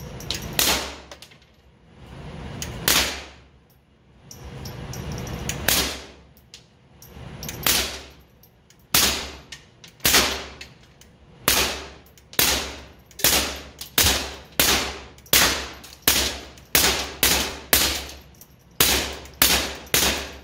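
Suppressed .22 LR semi-automatic pistol, a Taurus TX22 with a SilencerCo Sparrow suppressor, firing about twenty Federal plated hollow-point rounds. The shots come a couple of seconds apart at first, then speed up to about two a second, each a short sharp report. The whole magazine fires without a malfunction.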